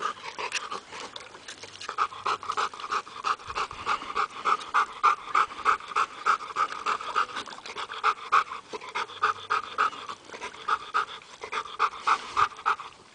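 A dog panting fast and rhythmically, about four breaths a second, louder and steadier from about two seconds in.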